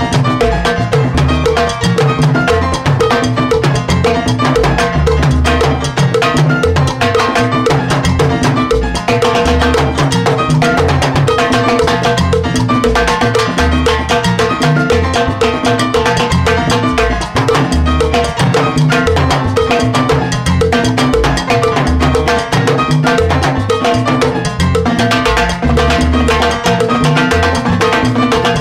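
Timbales solo: sticks striking the two drums, the mounted cowbell and the cymbal in fast runs, over a live salsa band's steady groove.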